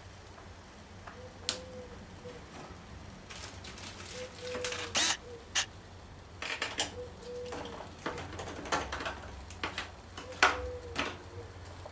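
Irregular sharp clicks, knocks and short rustles of parts and tools being handled while assembling a mountain bike, loudest around the middle and near the end. A short, low hoot-like tone recurs about every three seconds.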